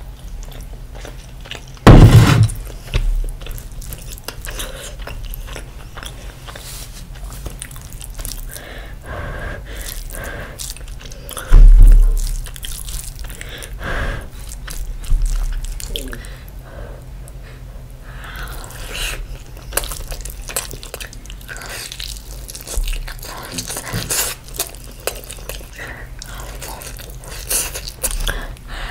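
Close-miked eating by hand: gravy poured over rice, rice squeezed between the fingers, and wet chewing and lip smacks. Two heavy thumps stand out, about two and twelve seconds in.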